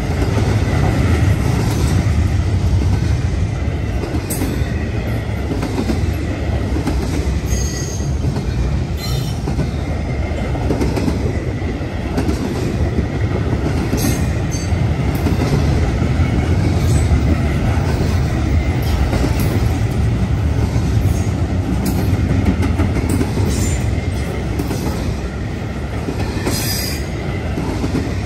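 Cars of an intermodal freight train rolling past, with a steady, loud rumble of wheels on rail. A faint high wheel squeal runs under it, with a few brief high squeaks.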